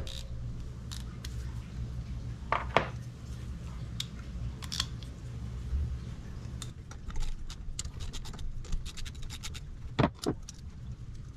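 Hand tools running nuts down onto the studs of a motorcycle engine's top end with a 12 mm socket: light metallic clinks and runs of quick clicking, with two louder clinks about ten seconds in.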